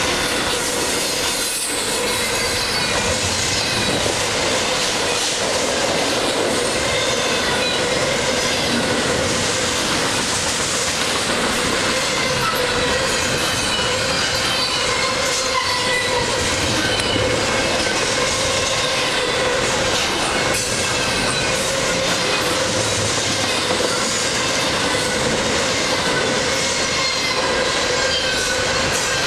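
Double-stack intermodal container cars of a freight train rolling past close by, loud and steady, with the wheels clacking and squealing in thin high tones that drift in pitch.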